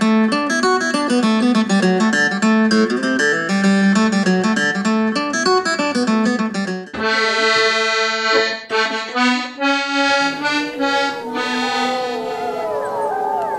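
Intro music: a fast accordion tune for about seven seconds, then held chords. Near the end a wolf howl glides in over the chords.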